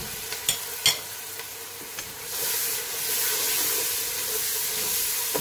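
Chopped onions and tomatoes sizzling as they fry in a pot, with a couple of light knocks in the first second. The sizzle grows louder about two seconds in.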